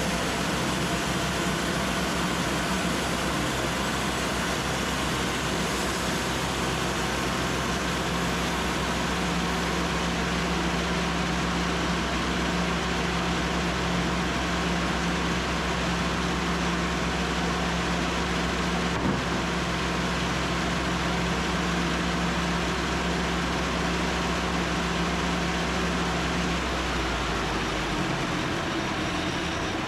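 Engine-driven band sawmill running steadily while sawing an air-dried red oak log. The low engine tone drops near the end.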